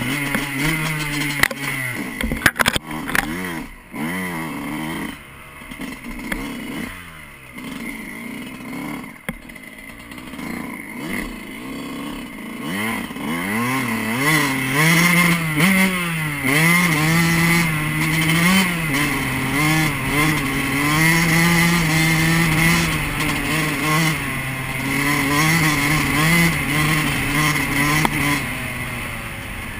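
Yamaha YZ125 two-stroke single-cylinder dirt bike engine revving up and down under throttle, with a few sharp knocks in the first three seconds. From about halfway it holds a steadier, higher pitch with brief dips.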